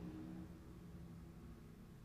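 Faint steady low hum of a powered-up Fanuc robot controller cabinet and its cooling fan.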